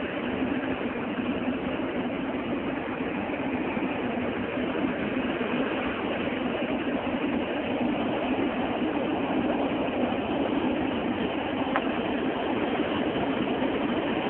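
Steady road and engine noise heard inside the cabin of a moving vehicle.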